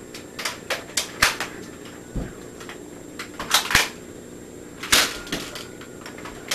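Toy Nerf blasters being primed and fired: about a dozen sharp plastic clicks and snaps at uneven intervals, the loudest about five seconds in, with a dull thump about two seconds in.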